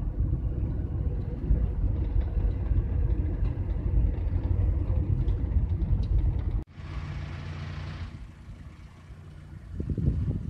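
Steady low engine and road rumble of a GAZelle van, heard from inside the cab while driving. It cuts off abruptly about two-thirds of the way through, giving way to a short hiss and then a much quieter outdoor background.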